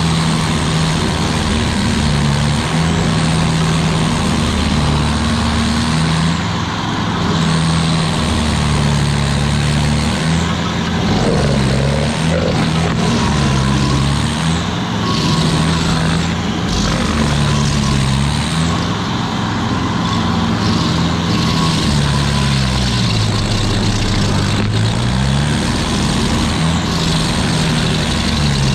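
Carlton 8018 stump grinder's engine running hard as its cutter wheel chews into an oak stump. The engine note sags and recovers again and again as the teeth bite, with one deeper, longer drag about two-thirds of the way through, over a steady hiss of wood chips being thrown.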